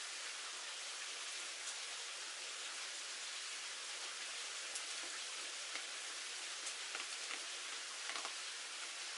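Steady hiss of light rain falling, with a few faint ticks and clicks scattered through it.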